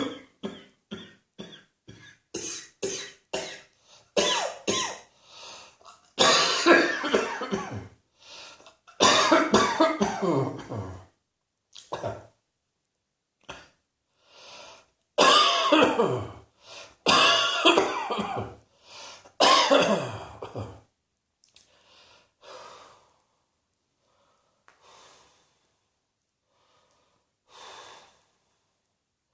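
A person's coughing fit: a quick run of short coughs, then several long, loud coughing bouts, easing off to faint breaths for the last several seconds.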